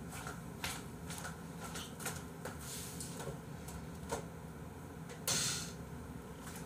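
Off-mic handling noises: scattered light clicks and knocks over a low room hum, with one sharper short hiss about five seconds in.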